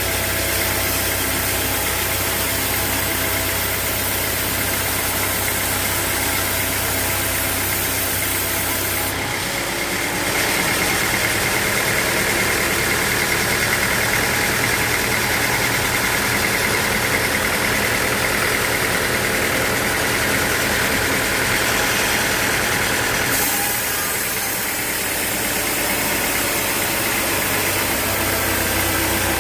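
Sawmill machinery running steadily. About ten seconds in the sound turns brighter with a higher whine, which lasts until about twenty-three seconds before it goes back to the steadier hum.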